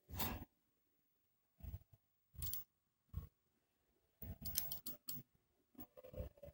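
Intermittent clicks and scrapes of hand tools and small parts being handled on a workbench during electronics repair: a few short separate bursts, then a busier run of clicking about four seconds in.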